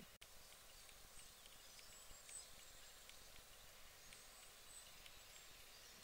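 Near silence: faint outdoor background with a few faint, short, high chirps of distant small birds. The sound drops out for an instant just after the start.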